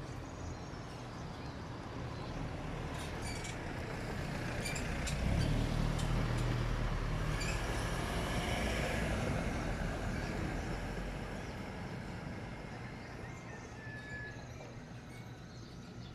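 A pickup truck driving past on the street: the engine rumble and tyre noise swell up over a few seconds, peak in the middle, and fade away.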